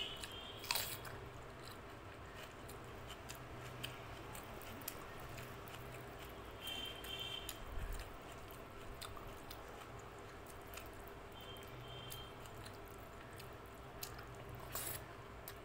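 Wet chewing and biting on a mouthful of rice, dal and fried fish, with soft squishing from fingers kneading rice into the dal, and two sharper clicks, about a second in and near the end.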